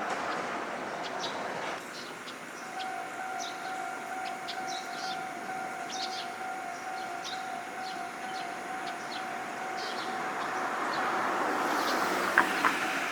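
Toei Arakawa Line level-crossing warning sounding a steady electronic tone, starting about three seconds in after a tram has passed. Another tram then approaches, its rumble growing over the last few seconds, with a couple of sharp clicks near the end.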